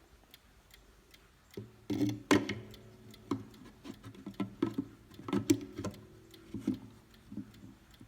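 Hermle 1050-020 mantel clock movement ticking about four times a second. From about a second and a half in, it is overlaid by a run of irregular, louder knocks and clunks, some with a short ringing tone.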